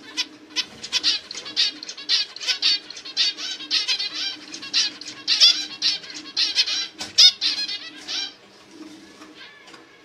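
Zebra finch chirping: a rapid, dense run of short high notes starting about half a second in and stopping at about eight seconds, loudest midway.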